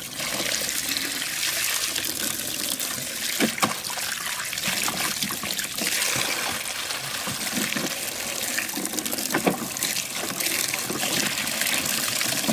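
A stream of water pouring steadily over a plastic toy ambulance and splashing into a muddy puddle beneath it, with a couple of light knocks.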